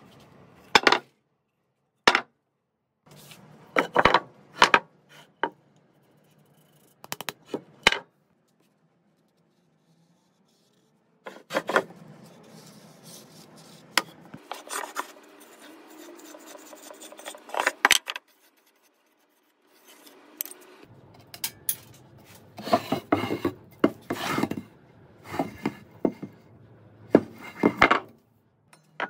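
Rough walnut boards handled on a wooden workbench: a series of sharp wooden knocks as they are set down, with rubbing and scraping between them.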